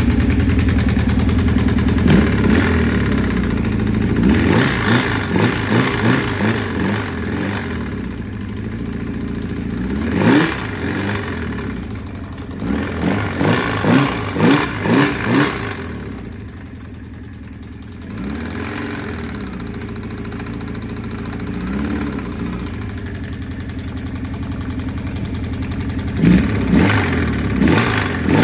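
1984 Honda CB750SC Nighthawk's air-cooled inline-four engine idling and blipped in short revs several times, settling to a lower idle about halfway through. The engine has a confirmed spun crankshaft bearing at cylinder 2.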